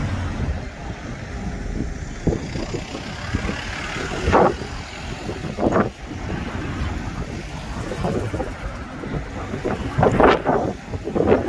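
Strong wind buffeting the phone's microphone, a steady rough rumble with sudden louder gusts a few times, over the noise of road traffic.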